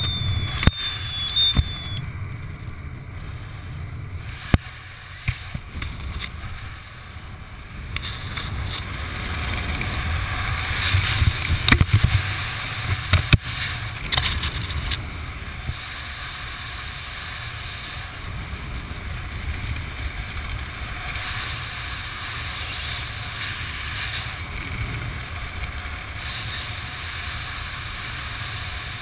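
Wind rushing over the camera microphone of a skydiver descending under an open parachute canopy: a steady low buffeting rumble with scattered clicks and rustles. A high warbling electronic beep sounds for the first two seconds, then stops.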